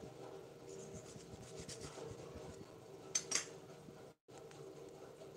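Faint rubbing and scraping of a cardboard dairy-cream carton being handled and opened, with two short sharp crackles about three seconds in.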